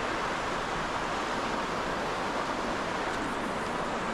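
Sea surf washing over the rocks below, a steady rush of breaking water.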